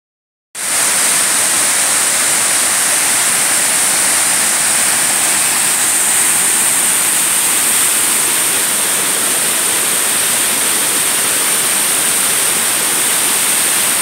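The Texolo waterfall's heavy fall of water crashing into its plunge pool close by: a loud, steady rush of water that starts abruptly about half a second in.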